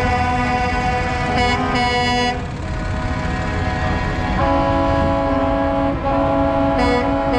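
Truck air horns sounding long, held notes whose pitch steps to new chords several times. Two brighter, sharper horn blasts come about a second and a half in and near the end, over a low rumble.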